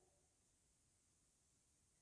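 Near silence: a pause in the speech with only faint background hiss.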